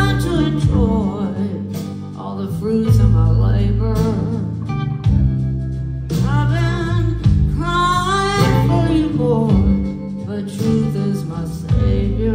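Live band playing a country-blues song, with a woman singing over acoustic guitar and a steady bass line.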